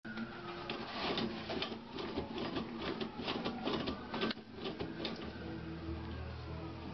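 A cat pawing at a toilet paper roll, spinning it on its wall holder: dense, irregular clicking and rattling with paper rustling.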